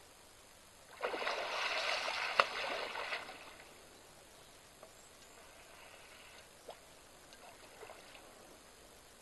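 An African elephant wallowing in a waterhole, splashing and sloshing water with its trunk for about two seconds, with one sharp slap in the middle. A few faint drips and small splashes follow.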